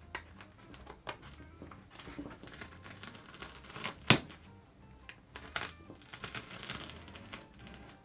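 Irregular clicks, taps and rustling from materials being handled and set in place on a work surface, with one sharp click about four seconds in.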